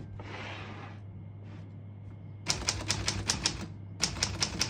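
1938 Corona Standard portable typewriter being typed on: a short swish about the first second, then from about halfway a fast run of sharp typebar strikes, roughly seven a second, a brief pause, and the strikes resuming. The keys strike cleanly, none skipping or sticking.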